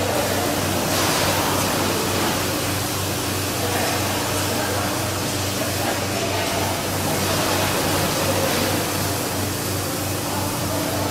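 Rotary milking parlour machinery running: a steady hiss over a low hum that pulses in a fast, even rhythm.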